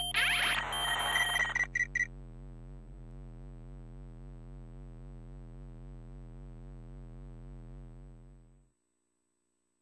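Electronic computer-style sound effects from an animated DVD menu: a busy flurry of beeps and chirps for about the first two seconds, then a low, evenly warbling electronic hum that cuts off suddenly near the end.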